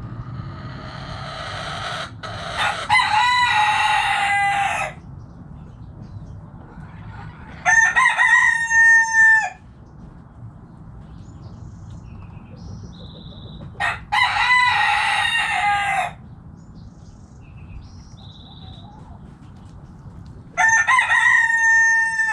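Roosters crowing: four long cock-a-doodle-doo crows, each about two seconds, coming every five to seven seconds. The last one is cut off at the very end.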